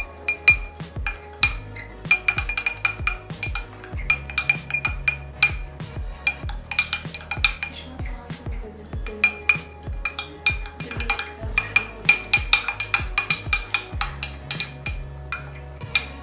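Metal spoon stirring a thick glue mixture in a glass container, clinking and scraping against the glass in rapid, irregular strokes.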